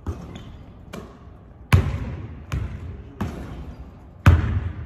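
A basketball bouncing in a gym: about six separate thuds at irregular spacing, two of them louder than the rest, each echoing through the hall.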